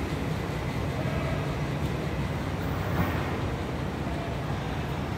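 Steady city street ambience: a low, even rumble of distant traffic and urban background noise.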